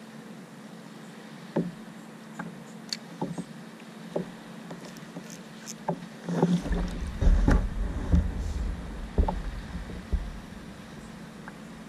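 Scattered knocks and clunks on a fishing kayak's hull as gear is handled aboard, with a busier stretch of heavier thumps and low rumbling from about six and a half to ten seconds in.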